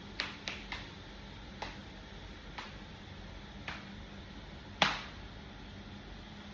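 About seven sharp clicks and taps of small hard objects at uneven intervals, the loudest about five seconds in.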